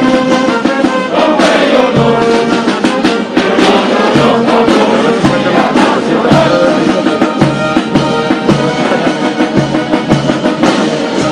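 Brass band music with a steady drum beat and voices singing along.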